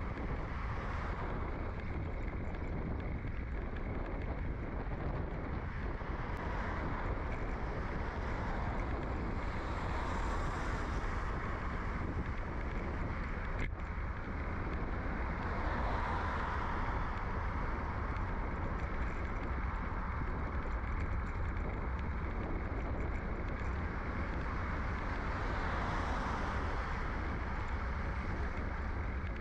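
Steady wind and road rumble from riding a bicycle, picked up by a frame-mounted microphone in a furry windshield. Passing cars swell and fade three times, at about ten, sixteen and twenty-six seconds in.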